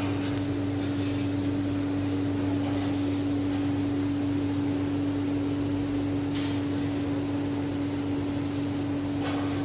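Kerupuk/rambak slicing machine running steadily, its electric motor giving a constant even hum.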